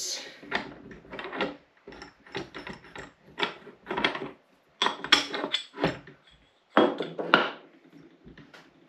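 Ratchet wrench clicking in short, uneven strokes, about two a second, as it turns the forcing screw of a ball joint press that is pressing a bushing out of an upper control arm.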